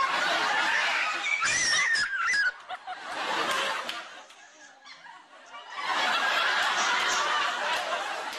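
A studio audience laughing in three swells, with a woman's high-pitched shriek about a second and a half in.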